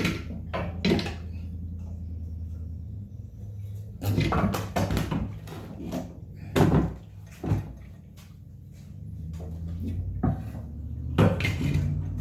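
Irregular metal clunks, knocks and scrapes as a part of a Honda trash pump is worked and pried out of its steel frame, over a steady low hum.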